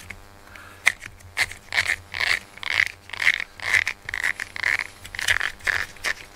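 Fingers rubbing and scraping cat hair off a pink rubber grooming brush, in repeated strokes about two a second, starting about a second in.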